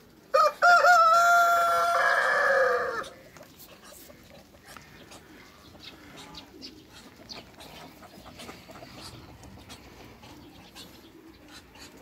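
A rooster crowing once, starting just after the beginning: a short first note, then a long held note of about two seconds that drops in pitch as it ends. Faint clucking follows.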